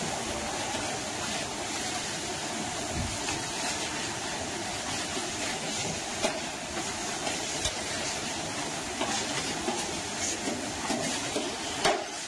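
Onions, mushrooms and tomato paste frying over high heat in a large stainless steel pan: a steady sizzling hiss, with a metal slotted spoon scraping and clicking against the pan as it is stirred.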